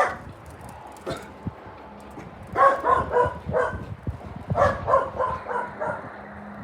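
Wind buffeting the microphone, with two runs of short, repeated animal calls, several to a run, each about a third of a second apart.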